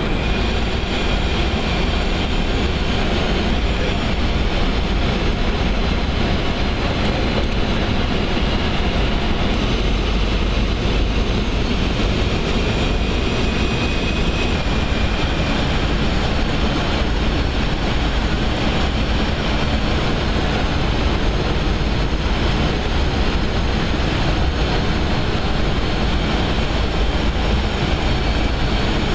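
Steady cockpit noise of a KC-135 Stratotanker in flight: engine and airflow noise, heaviest in the low end and unbroken throughout.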